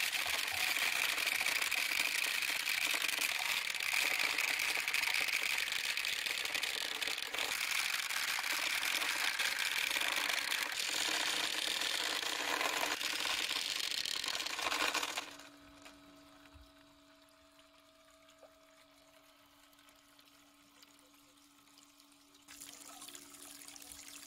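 Water rushing and splashing down a plastic marble-run slide, carrying marbles with it. About 15 seconds in it cuts off suddenly, leaving a faint steady hum. Lighter water splashing from a small fountain comes back near the end.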